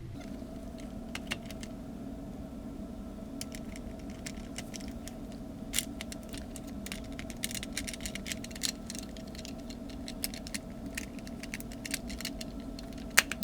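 Plastic clicking and tapping as a PS4 controller's shell halves are pressed and snapped back together, over a steady low hum. The clicks come thickly from about three seconds in, with a sharp snap near the end.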